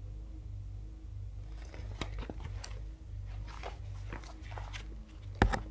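Glossy magazine pages being handled and turned, with a run of irregular crackles and rustles and one sharp, loud snap near the end.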